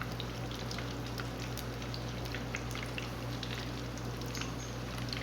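Spice-and-corn-flour-coated chicken pieces frying in oil on a low flame: a steady sizzle with many small crackles and pops.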